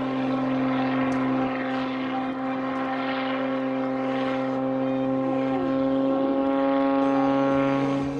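Aerobatic plane's piston engine and propeller running at high power, a steady droning hum, as it climbs vertically and tumbles. Faint falling pitch glides come in about five to six seconds in.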